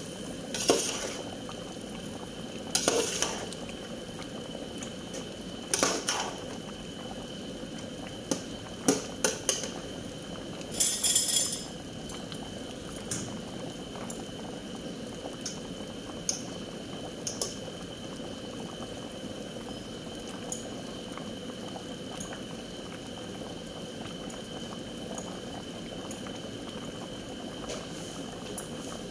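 A pot of food simmering with a steady bubbling. Several clinks and clatters of a utensil against cookware come in the first dozen seconds.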